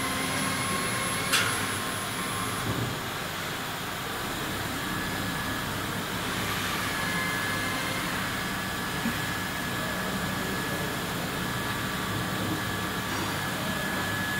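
Steady whirring machine noise of a CNC router workshop. A single sharp click comes about a second and a half in, and a faint high steady whine joins about five seconds in.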